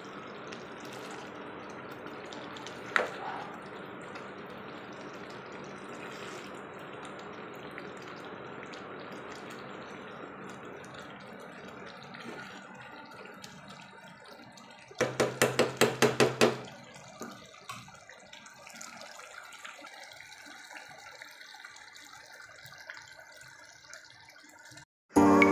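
Prawn and egg curry simmering in a pan with a steady bubbling, stirred with a spoon at first. About halfway through comes a quick run of about eight loud clicks lasting a second and a half.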